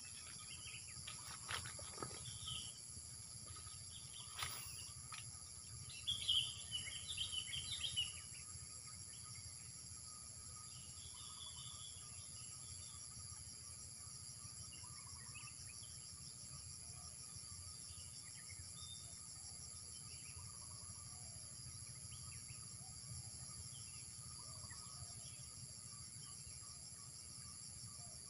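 A steady chorus of insects with a high, finely pulsing drone, with bird chirps scattered over it, busiest a few seconds in. A few faint clicks come in the first seconds.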